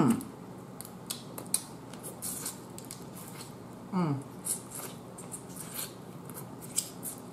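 Boiled crab being picked apart by hand and eaten: scattered sharp clicks and snaps of shell, with mouth and lip sounds, and a short falling "mm" hum about four seconds in.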